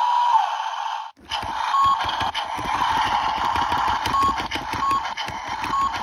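Tinny electronic sound effects from a Tonka Toughest Minis toy bulldozer's built-in sound chip, played through its tiny speaker. A wavering buzz cuts off about a second in, then a new rumbling engine effect starts with short beeps repeating over it.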